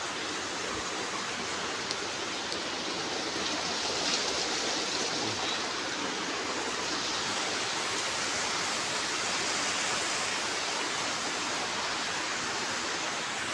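Steady rush of water pouring through a sluice gate.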